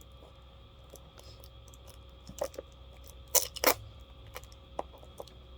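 Hands handling and prying at a tape-wrapped homemade package: scattered small clicks and crinkles, with two sharp, louder snaps in quick succession a little past halfway.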